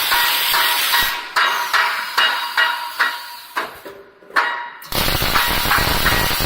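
Automatic box-beam welding machine running: a loud hissing crackle with a quick rhythmic clatter of about three strokes a second. It breaks off twice, then from about five seconds in it becomes a steadier, fuller noise.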